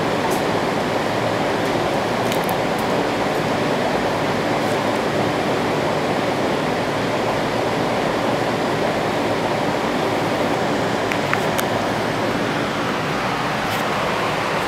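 Homemade large-scale tornado machine running: its ceiling fan and the swirling air make a loud, steady rushing noise. A couple of faint clicks come through about two-thirds of the way in.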